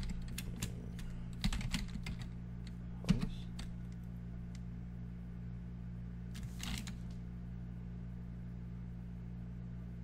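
Computer keyboard being typed on in quick key clicks for the first three and a half seconds, with one harder key strike about three seconds in. After that only a steady low hum remains, broken by a brief rustle about six and a half seconds in.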